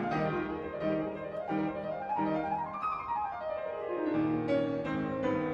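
Instrumental piano music, with a run of notes climbing and then falling back about midway.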